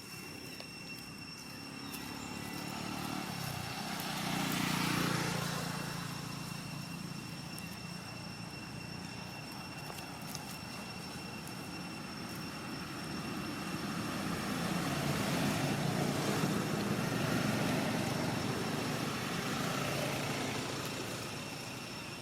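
Engine noise that swells and fades as it passes, once about four seconds in and again for several seconds from about fourteen seconds, over a steady high-pitched tone.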